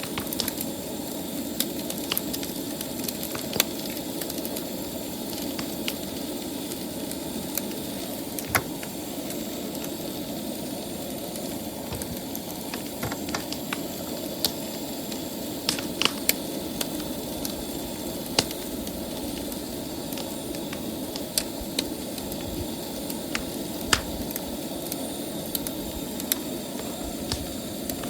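Camp stove burner running steadily under a pan, with food sizzling and scattered sharp pops.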